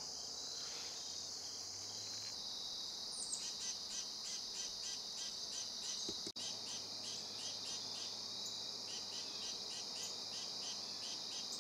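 Evening insect chorus: a steady high-pitched drone of crickets, joined about two seconds in by evenly spaced chirping about three times a second. There is a momentary dropout just after six seconds.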